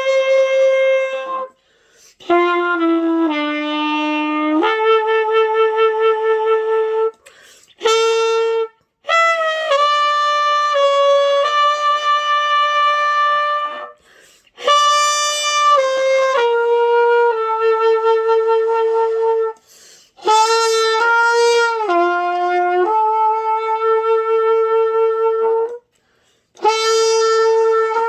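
A beginner playing the trumpet: a slow melody of long held notes in short phrases, with brief breath pauses between phrases.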